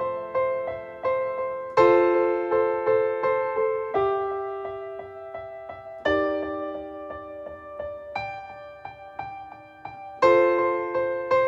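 Keyboard playing a repeated chord pattern, a chord change about every two seconds, each note struck and left to fade, with no singing.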